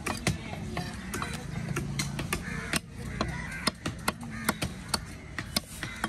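Sharp knocks of a heavy fish-cutting knife striking a red snapper on a wooden log chopping block, about two a second at uneven intervals, with faint voices in the background.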